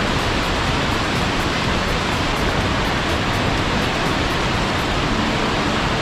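Waterfall about 40 ft high pouring down a rock face: a steady, even rush of falling water.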